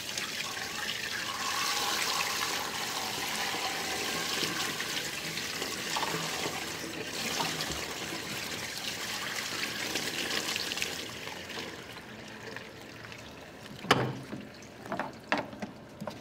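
Dirty water pouring steadily from a carpet extractor's drain hose into a floor drain as its recovery tank is emptied. The flow dies away about three quarters of the way through, followed by a few sharp knocks.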